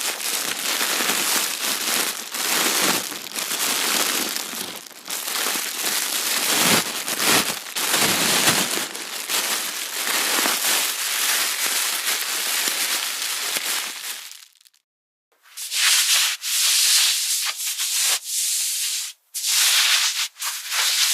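A sweater being rubbed and handled, a steady rustling for about fourteen seconds. After a brief silence, kitchen foil crinkles in short, bright bursts.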